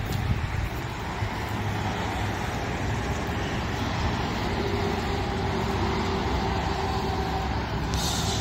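Gas V8 engine of a Chevrolet Silverado 3500HD dump truck idling with a steady low rumble. A faint hum joins about halfway through, and there is a short hiss near the end.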